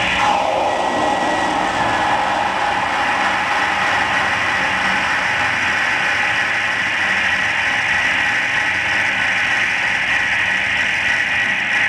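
Harsh noise music from a live electronics rig: a loud, unbroken wall of distorted noise with a thin high whine running through it that grows stronger after a few seconds.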